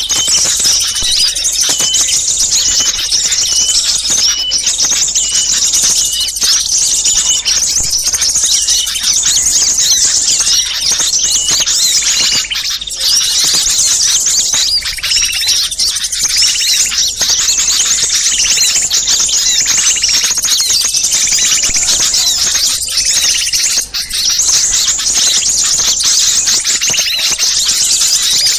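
Bird-lure recording of many small songbirds chirping and twittering at once: a dense, noisy chorus of high, rapid calls, meant to draw wild small birds in.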